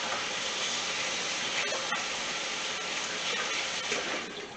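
Kitchen tap running with water splashing into the sink while hands are washed, shut off about four seconds in.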